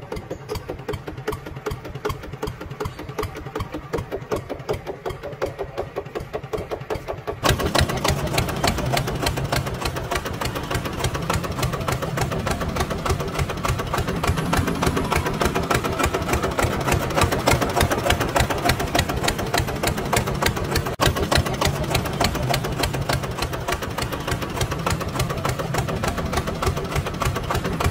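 Engine-like motor running with a rapid, even chugging pulse. It becomes louder and fuller about seven seconds in.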